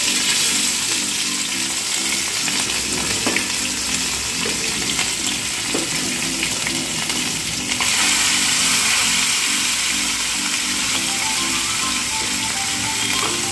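Small mourala fish frying in hot mustard oil in a wok: a steady, loud sizzle that grows a little brighter about eight seconds in.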